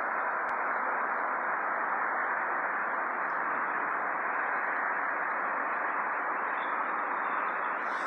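Steady, even rushing noise with no distinct events, and a short higher hiss near the end.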